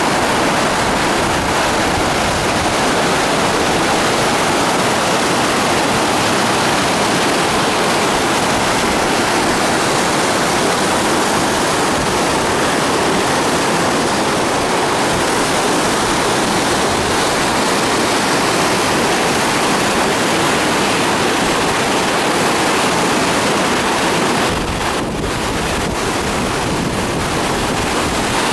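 Waterfall: a loud, steady rush of falling water that dips briefly in level about 25 seconds in.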